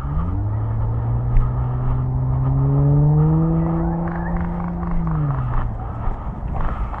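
An engine hum that climbs slowly in pitch, holds, then drops and fades away about five seconds in, as a passing motor vehicle does.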